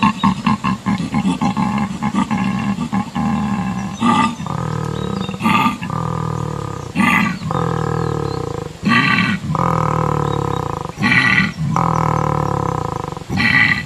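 Ankylosaurus creature sound effects. A fast pulsing call runs over the first few seconds. Then short, sharp roars come about every two seconds, each followed by a longer, steady low bellow.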